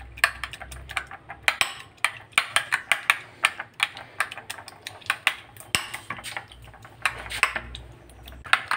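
Steel spoon clinking against a ceramic bowl while beating raw eggs with chopped onion and green chilli: quick, uneven clinks, several a second, with the wet slosh of the egg mix.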